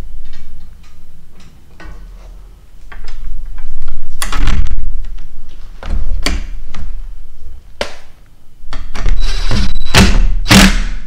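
Knocks and clatters of a steel mobile-base corner bracket and a cordless drill being handled and set against the machine's stand, loudest about four seconds in and again near the end.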